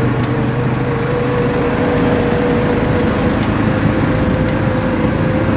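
ATV engine running steadily under way, its hum climbing slightly in pitch.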